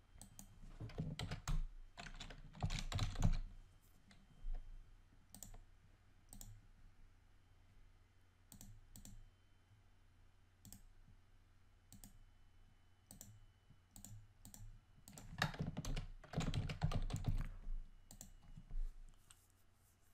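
Typing on a computer keyboard in two quick flurries, one about a second in and one around sixteen seconds in, with single mouse clicks scattered between.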